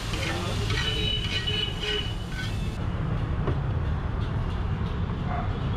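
Metal spatula scraping and stirring on a steel tawa for about the first two seconds, over a steady low rumble.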